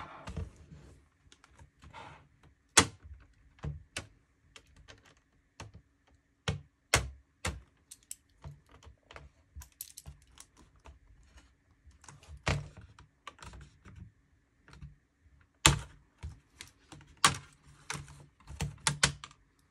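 Plastic keyboard trim of a Dell Latitude E7450 laptop being pried off with a flathead screwdriver: irregular sharp clicks and snaps as its clips pop free, coming thicker near the end.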